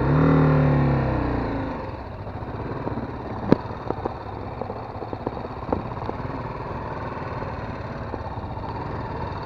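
BMW G 310 GS single-cylinder engine revved, its pitch falling over the first two seconds as the throttle closes, then running steadily at low speed. A few sharp clicks and knocks come through, the loudest about three and a half seconds in.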